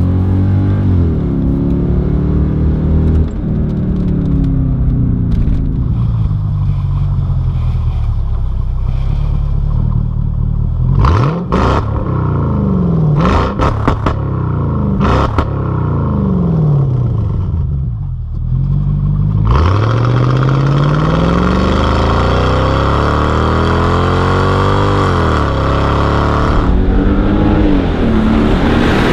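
Lorinser-tuned Mercedes CL 500's V8 engine and exhaust: first driving under load, then revved in several quick blips with sharp cracks, then a long pull rising steadily in pitch under acceleration. Near the end the car comes up loudly and passes by.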